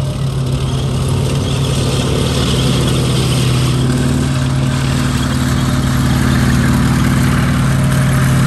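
Sherman tank's radial engine running steadily as the tank drives past, its low hum growing louder as it comes close.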